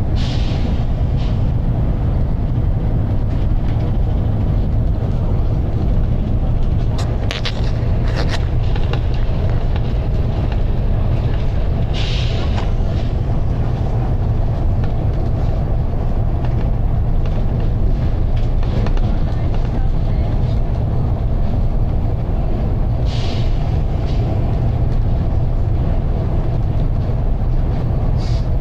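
Volvo B9TL double-decker bus from the upper deck, its diesel engine and running gear giving a steady heavy low drone. Short hisses of air from the bus's air system come about a second in, around twelve seconds, around twenty-three seconds and just before the end. A few sharp rattles sound around seven to eight seconds.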